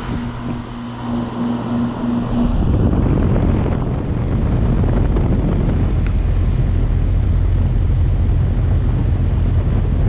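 A 2008 Goodman 2-ton heat pump running in heat mode with a steady low hum. About two and a half seconds in, a loud rush of air buffeting the microphone sets in and covers the hum until the very end.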